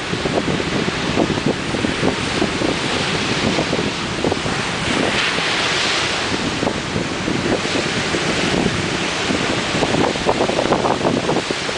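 Ocean surf breaking and washing in, in swells of hiss, with wind gusting on the microphone and rumbling throughout.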